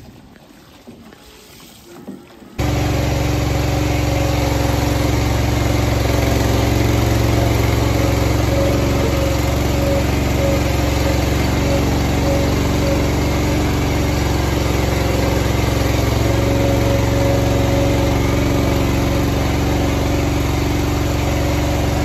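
Engine of a small ride-on calf-feeding cart running steadily at a constant speed. It starts abruptly about two and a half seconds in, after a few faint knocks.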